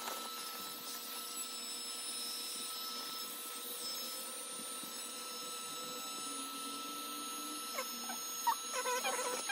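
Small electric air pump running with a steady whine and hiss. About eight seconds in, a hand rubbing on the inflated vinyl air bed squeaks a few times.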